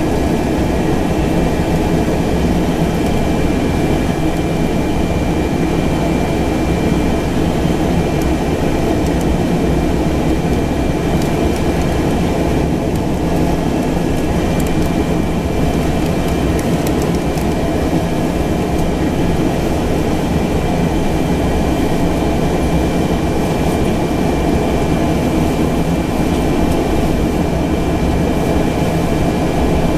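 Pilatus PC-12's single Pratt & Whitney PT6A turboprop running steadily on the ground, heard from inside the cabin: a dense rumble with a high, even turbine whine over it.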